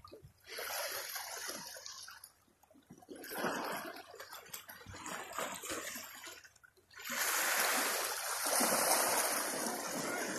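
Sea surf washing against a rocky shore, surging in and falling back a few times, then running louder and steadier from about seven seconds in.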